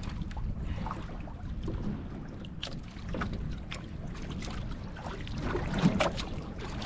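Wind rumbling on the microphone and water sloshing against a small boat's hull on rough sea, with scattered knocks and clicks, the loudest about six seconds in.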